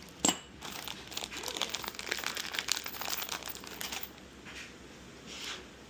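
Packaging being handled and crinkled during furniture assembly: a sharp knock just after the start, then about three seconds of dense crackling, then a couple of softer rustles.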